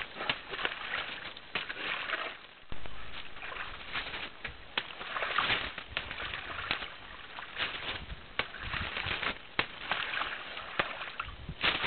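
Wet mud squelching and splashing as African forest elephants move in a mud wallow, the adult's trunk sweeping and throwing the mud, with scattered sharp slaps and clicks.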